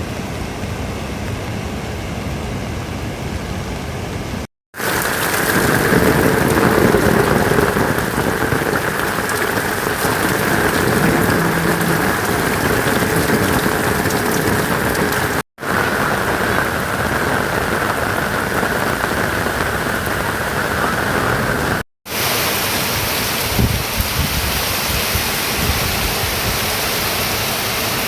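Heavy rain falling steadily, a dense even hiss. It drops out to silence for a moment about 5, 15 and 22 seconds in, and the rain sounds slightly different after each break.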